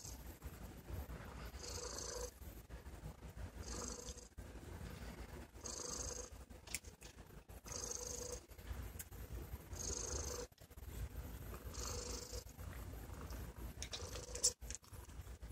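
Sphynx cat purring steadily, a low rumble with a breathy hiss coming back about every two seconds as the cat breathes in and out.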